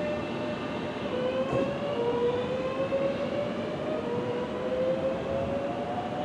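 Southeastern electric multiple unit pulling away, its traction motors whining in several tones that climb steadily in pitch as it accelerates, over the rumble of the train.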